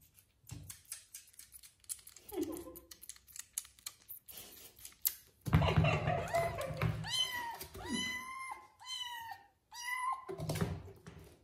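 A young kitten, about a month old, mewing in a run of short, high-pitched mews in the second half. Before that come light clicks and rustling, with a louder rustle just before the mews.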